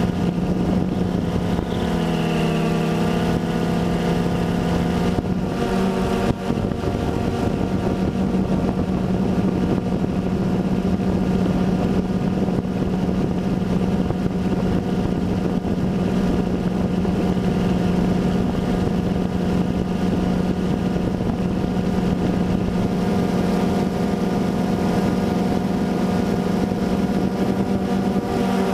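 DJI Phantom 2 quadcopter's four motors and propellers, heard from the camera on the drone itself: a steady motor drone that wavers in pitch for a moment about two seconds in.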